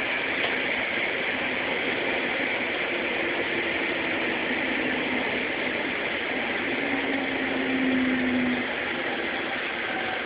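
Steady running noise of a JR Sobu Rapid Line commuter train, with a faint low motor whine holding for a couple of seconds near the end.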